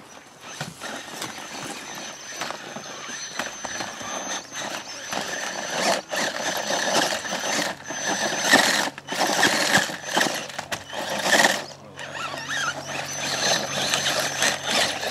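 Electric RC trail truck running, its motor and gears whining and grinding in surges that are loudest from about eight to twelve seconds in, over a thin steady high whine.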